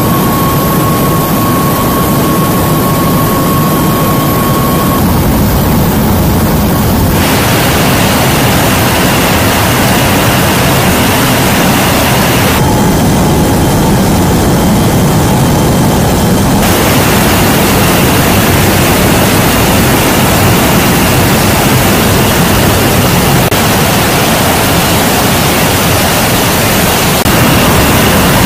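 Steady, loud roar inside the cargo hold of a C-17 Globemaster III in flight: its four turbofan engines and rushing air. The tone shifts abruptly a few times, and the roar grows a little louder near the end.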